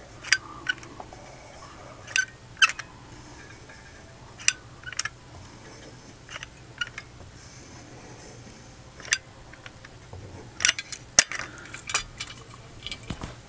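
Scattered sharp clicks and light taps of a caulk tube and small tools being handled as caulk is readied for the underside of a model sidewalk piece, with a quick run of clicks near the end.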